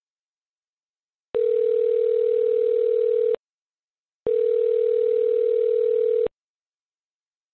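Telephone ringback tone heard down the phone line: two steady rings of about two seconds each, a second apart, as a transferred call rings through and is not yet answered.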